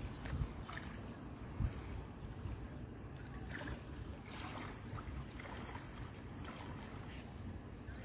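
Faint splashing and trickling of river water over a steady low rumble, with a soft thump about a second and a half in.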